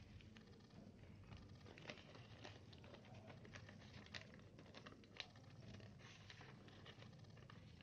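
Faint rustling and crinkling of a sheet of paper being folded and handled by hand, a run of small irregular crackles with one sharper tick about five seconds in.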